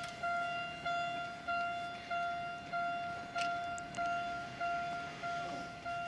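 Electronic warning bell of a Japanese level crossing ringing, a repeating pitched ding about one and a half times a second: the crossing is closing for an approaching train.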